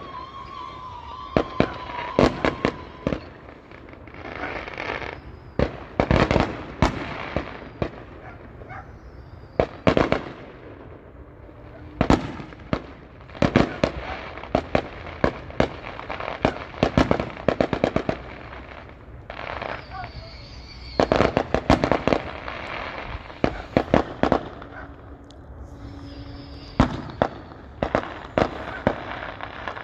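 Fireworks going off: sharp bangs in rapid clusters with crackling between them, broken by a few short lulls.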